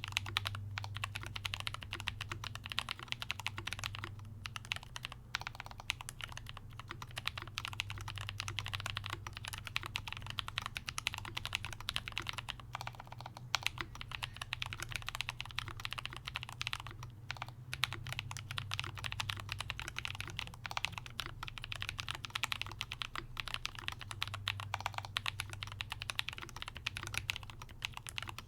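Dense, rapid clicking, never pausing, over a steady low hum.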